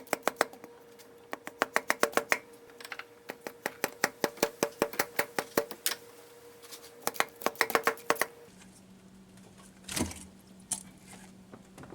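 Hand ratchet wrench clicking in quick runs of several clicks, working a bolt on the intake manifold, over a faint steady hum. A single louder knock comes near the end.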